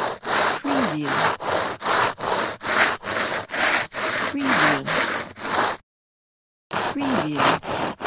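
Wood being sawn in quick, even back-and-forth strokes, about three a second. The sawing stops for under a second about three quarters of the way through, then starts again.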